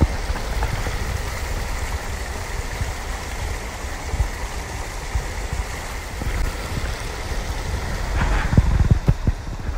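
Steady rush of running water from a mountain creek or waterfall, with wind rumble and handling bumps on the phone's microphone; a few louder knocks come about eight to nine seconds in.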